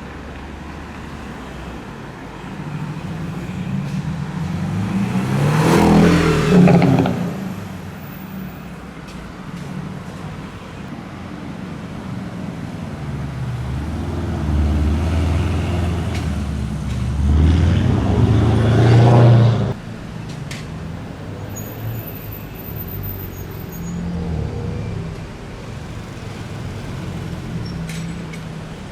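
Sports cars accelerating hard past on a street, the engine note rising and the exhaust getting loud as each goes by: two pass-bys, the second louder and ending with a sudden cut, over a steady traffic rumble.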